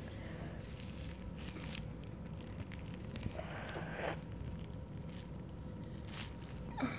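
Thin plastic film of an individually wrapped cheese slice crinkling as the slice is peeled out of it, in small crackles with a louder rustle about four seconds in.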